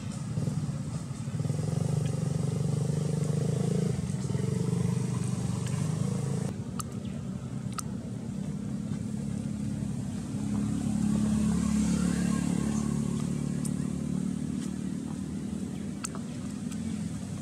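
A motor vehicle engine running steadily, growing louder twice, with a few sharp clicks.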